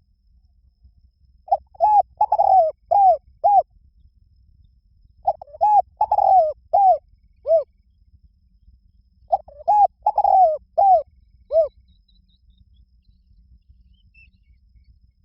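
Spotted dove cooing: three phrases of five or six short coos each, the phrases about four seconds apart.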